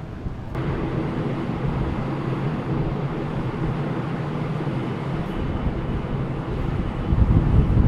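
Steady low hum of a large car ferry's engines and funnel machinery heard on the open deck, with wind buffeting the microphone and growing louder near the end.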